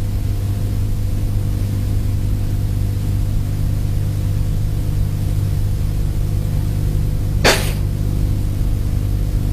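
A steady low hum with no speech over it, and a brief hiss about seven and a half seconds in.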